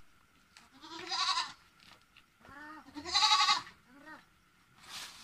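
Farm animal bleating: one call about a second in, a longer one around three seconds, and a short one just after.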